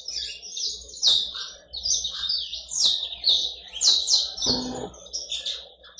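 Saffron finch in full song: a long, rapid run of high chirping and trilling notes. A brief low rustle comes about four and a half seconds in.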